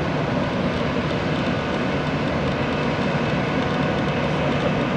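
Jet airliner engines running at the airport: a steady rumble and rush of engine noise with a faint, steady high whine.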